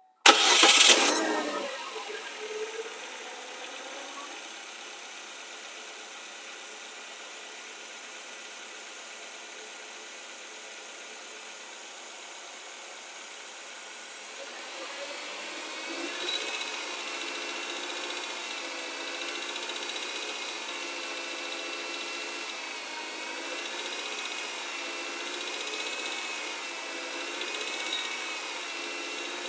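Chevrolet Cobalt engine started cold: a loud burst as it fires, then settling to a steady idle that grows a little louder and wavers in pitch from about halfway through. The owner is filming it for a knock that appears when the engine is cold.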